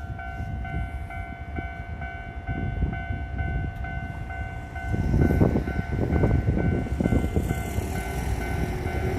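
Japanese level-crossing warning bell ringing in a steady repeating pattern, about two rings a second, while a Hankyu electric train passes over the crossing; the rumble and clatter of its wheels on the rails swells up loudly about five seconds in.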